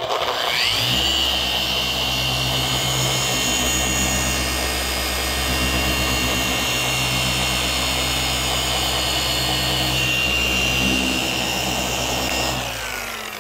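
RUPES electric paint polisher, fitted with a medium pad and coarse compound, cutting oxidised single-stage paint. It spins up with a rising whine about a second in, runs steadily, and winds down near the end.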